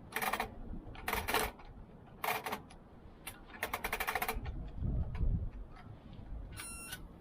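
Four short bursts of rapid clicking rattle, then a low thud about five seconds in and a brief high squeak near the end.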